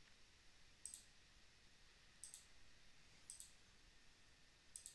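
Four faint computer mouse clicks, spaced roughly a second apart, over quiet room tone.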